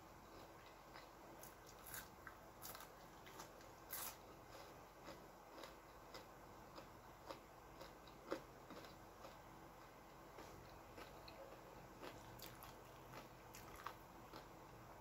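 Faint chewing and biting of food, with scattered small crunches and clicks, the sharpest about eight seconds in, over a faint steady hum.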